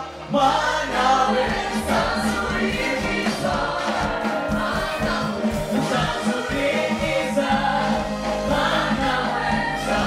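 Gospel choir singing in several voices over a steady instrumental accompaniment with a bass line.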